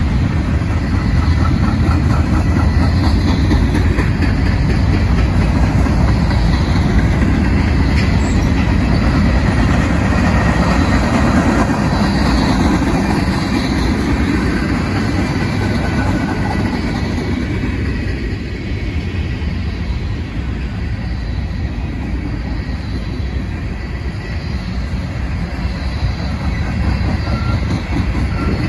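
Freight train cars rolling past, a steady heavy rumble of steel wheels on rail that eases a little past the middle and builds again near the end.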